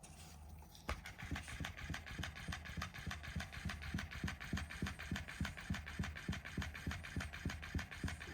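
Battery-powered tanuki cat toy switching on about a second in, its motor running and its mechanism knocking rhythmically at about five knocks a second.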